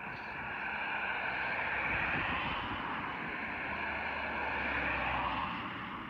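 A passing vehicle: a rushing noise that swells over the first few seconds, holds with a low rumble underneath, and fades near the end.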